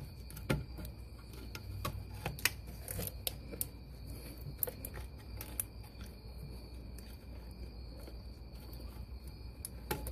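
Scattered light clicks and taps of parts being handled around a car's ABS module and brake lines, a few sharp ones standing out, over a steady low hum and faint steady high tones.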